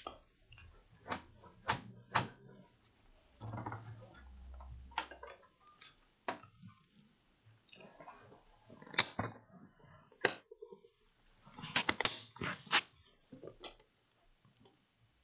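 Irregular clicks, taps and knocks of a laptop's plastic casing being handled and moved about on a workbench, with a tight cluster of sharp clicks about twelve seconds in.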